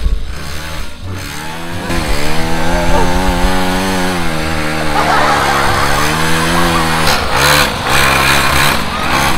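Small petrol engine of a child's mini ATV quad running and being revved. It rises to a steady buzz about two seconds in and drops back about seven seconds in.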